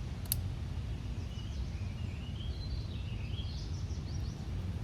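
Steady low outdoor rumble with small birds chirping in a run of quick notes that slide up and down, and one sharp click about a third of a second in.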